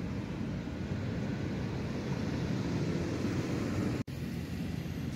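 Steady low outdoor background rumble with no distinct events; the sound cuts out for an instant about four seconds in.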